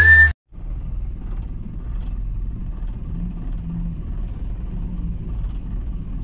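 Steady low rumble of a vehicle's engine and tyres driving on a rough dirt road, heard from inside the cab.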